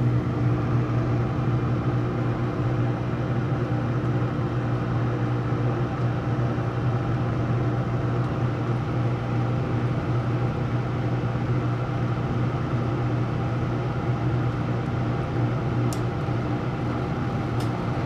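Gas furnace running with its burners lit and the draft inducer motor going: a steady mechanical hum, with two faint clicks near the end.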